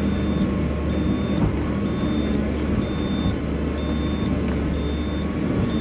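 Excavator diesel engine running, heard from inside the cab while digging, with a high-pitched warning alarm beeping about once a second throughout.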